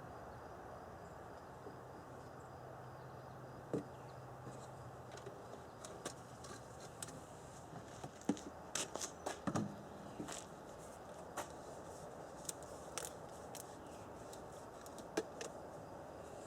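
Scattered light clicks and knocks of hands handling objects, bunched about eight to ten seconds in, over a faint steady background; a faint low hum stops about five seconds in.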